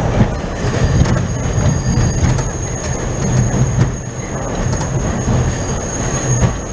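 New York City subway train running, heard from inside the car: a loud low rumble, wheels clacking now and then over the rail joints, and a thin, steady high-pitched wheel squeal.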